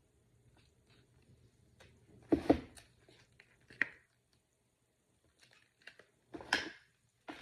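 Groceries and their packaging being handled: scattered knocks and rustles as items are picked up and set down, the loudest a double knock about two and a half seconds in.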